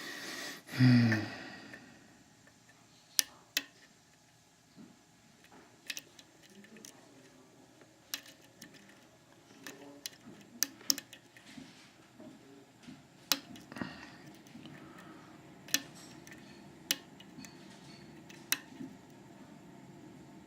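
Lock picks working the pins of a CX5 high-security mortise cylinder: small, sharp metal clicks and taps, irregular and scattered. A brief vocal sound comes about a second in.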